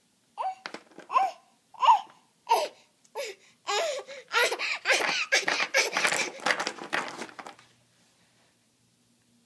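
A seven-month-old baby laughing: first a run of short separate laughs about half a second apart, then a longer unbroken stretch of laughter that stops about three-quarters of the way through.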